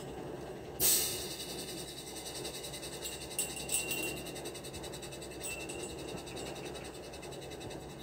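Construction-site clatter: a sudden loud bang about a second in, then steady mechanical rattling with short high squeaks at about three and a half and five and a half seconds, as from metal formwork and crane work.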